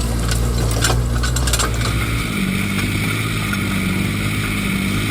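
Heavy excavator's diesel engine running steadily, with a few sharp knocks in the first two seconds. About two seconds in the sound changes to a steadier drone with a hiss and a slowly wavering whine.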